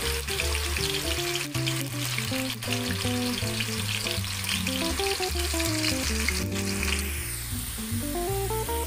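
Fresh-cut potato fries frying in hot oil in a wok, a dense crackling sizzle that fades away about seven seconds in. A melodic background music track plays underneath throughout.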